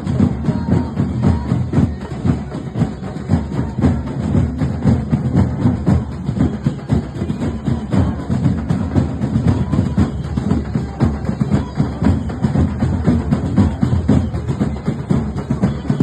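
Drum-led music: drums beating in a fast, steady rhythm.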